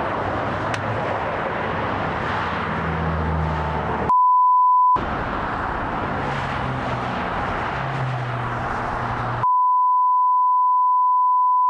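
Vehicle engine and road noise, cut twice by a steady 1 kHz beep tone: once for about a second about four seconds in, then again from about nine and a half seconds on.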